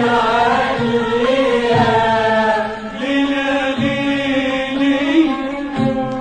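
Traditional Egyptian Arabic ensemble music, a dawr: voices singing a gliding, ornamented melody over instrumental accompaniment.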